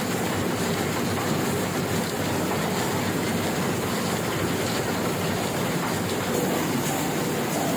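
Heidelberg sheet-fed offset printing press (64 × 91.5 cm format) running steadily, a continuous even mechanical noise with no pauses or changes.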